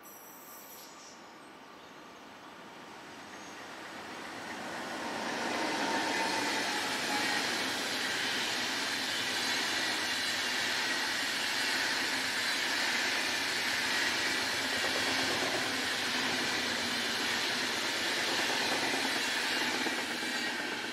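A train passing on the line: the sound of wheels on rails builds from about four seconds in, then holds as a loud, steady rush until it eases slightly near the end.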